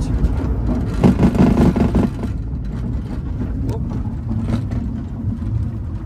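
Glider rolling on its main wheel over a grass airfield after landing: a steady low rumble with the cockpit rattling, louder about a second in, with a few light knocks later on.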